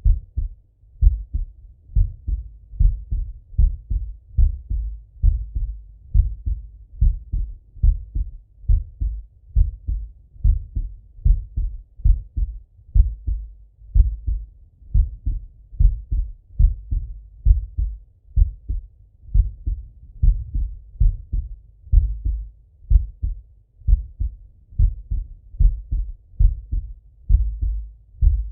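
A man's heartbeat heard through a Littmann stethoscope chest piece: a slow, steady rhythm of paired low thumps (lub-dub).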